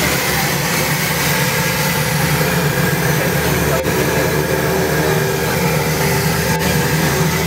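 Twin turboprop engines of a small airliner running at takeoff power, a steady loud drone heard inside the cabin during the takeoff roll. Two brief clicks sound a few seconds apart.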